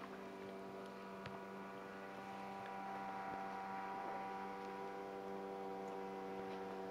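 A steady hum holding one pitch, with a ladder of overtones above it, and a single faint tick about a second in.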